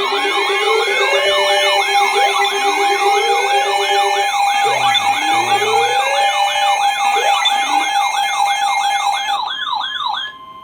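Several electronic sirens sounding at once, slow wails and fast yelps overlapping, over a steady alert tone. The steady tone stops about nine seconds in, and the sirens cut off shortly after.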